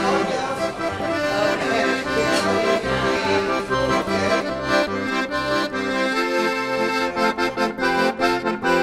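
Background instrumental music led by an accordion, with held chords and a regular pulse in the bass.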